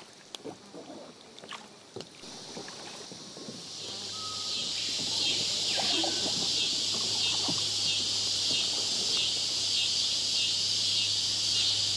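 A high, steady buzzing insect chorus swells up about four seconds in and then holds, pulsing finely, over a faint low hum.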